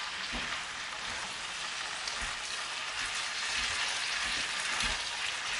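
Boiled white cabbage and bacon lardons frying in a pan with a steady sizzle, turned over with metal tongs, with a few soft knocks of the tongs against the pan.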